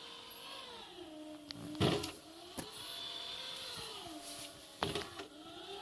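Everybot RS500N mopping robot's pad motors whining, the pitch rising and falling every couple of seconds as it steers along in wall-following mode. A few sharp knocks come in between.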